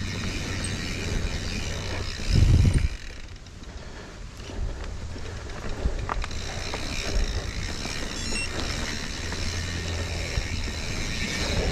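Mountain bike being ridden over a rocky trail: tyres rolling over rock and the bike rattling over a low rumble, with one heavy thump about two and a half seconds in.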